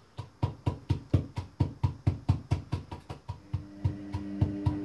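Rhythmic knocking, about four strokes a second, from hand work on a bowl of homemade çemen paste. A steady low hum comes in about three and a half seconds in.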